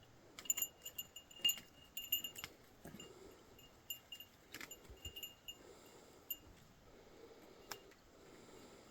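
A small, high-pitched metal bell or chime tinkling in irregular little clusters, with a few sharp clicks among the rings.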